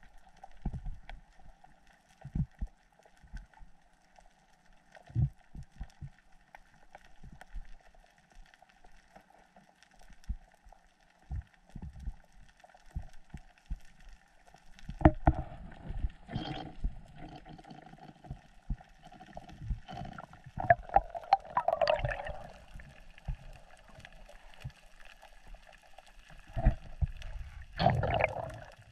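Muffled underwater sound picked up through a diving camera's housing: scattered low thuds and knocks, with louder bursts of bubbling and gurgling about halfway through, again a little later, and near the end, over a faint steady hum.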